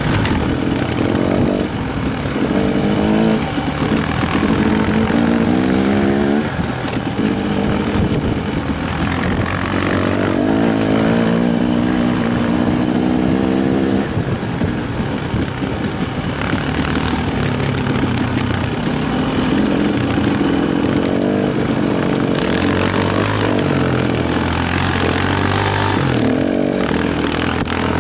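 Honda CRF150 dirt bike's four-stroke single-cylinder engine being ridden, rising in pitch as it revs up several times, over a steady propeller hum from the camera drone following it.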